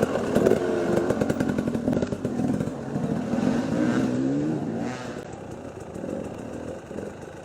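Enduro motorcycle engine revving hard, its pitch rising and falling through repeated bursts of throttle, then fading after about five seconds.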